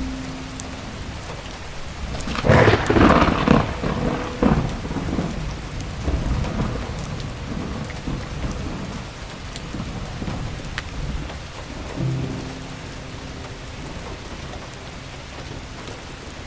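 Steady rain falling, with a loud roll of thunder from about two and a half to five seconds in. Soft held music notes sound near the start and again about twelve seconds in.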